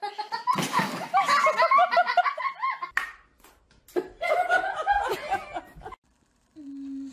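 A sharp thud about half a second in, then people laughing in rapid bursts; after a sudden cut, another round of laughter, and a short steady tone near the end.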